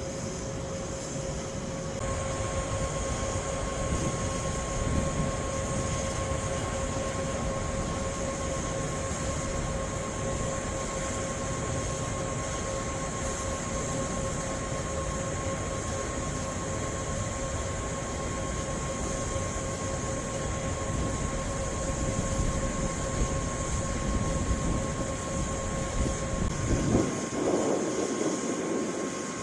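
JR West 381-series electric train rolling slowly past on depot tracks: a steady running noise with a constant humming tone that steps up in pitch about two seconds in. A louder, rougher passage comes near the end.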